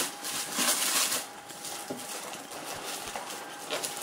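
Clear plastic wrapping crinkling and rustling as hands handle a bagged espresso machine in its box. It is loudest in the first second or so, then breaks into softer, scattered crackles.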